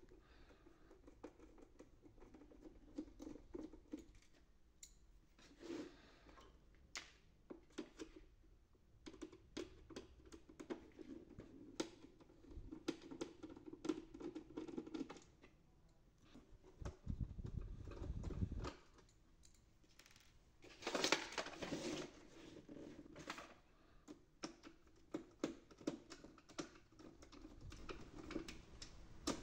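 Small screwdriver backing screws out of the plastic housing of an HP LaserJet MFP scanner unit: faint scattered clicks, with short squeaky scraping as the tip turns in the screw heads. There is also a low rumble for about a second and a half a little past halfway, as the unit is handled.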